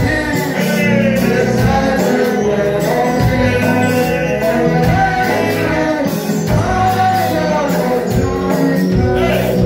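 Live church worship music: a man sings into a microphone over amplified instrumental accompaniment with a steady bass and percussion beat.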